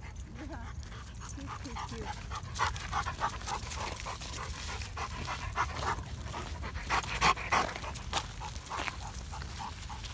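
Dog panting in short, quick breaths, loudest in the middle and later part, over a steady low rumble.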